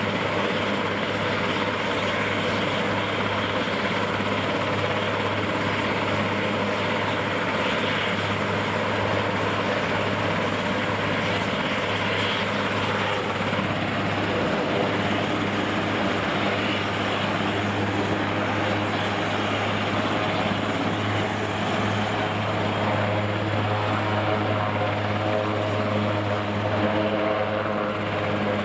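AS532 Cougar military helicopter running on the ground with its rotors turning, its twin turboshaft engines giving a steady low drone with a faint high whine.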